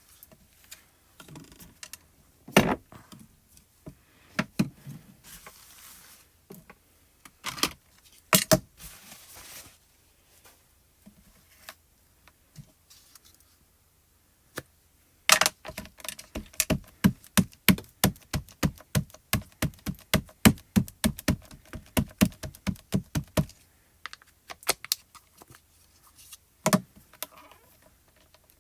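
A rubber stamp and ink pad tapped together over and over to re-ink the stamp, a fast, even run of light clicks lasting about eight seconds. A few single knocks come before it, and one more comes after.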